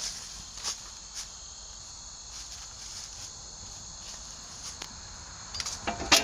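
Crickets chirring in a steady high-pitched drone, with a couple of faint clicks. Near the end, music with sharp clicking percussion comes in.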